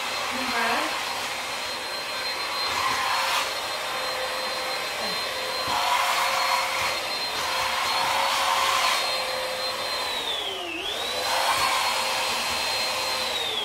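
Handheld vacuum cleaner running steadily with a high motor whine, sucking up pet fur from a wooden floor, with bursts of rattling as debris goes through. The motor sags briefly about eleven seconds in, picks back up, then winds down near the end.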